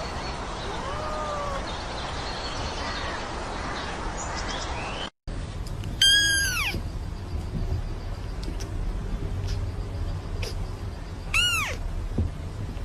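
A young kitten meowing: two high, thin meows, each rising then falling, about five seconds apart. The first comes about six seconds in and is the loudest sound.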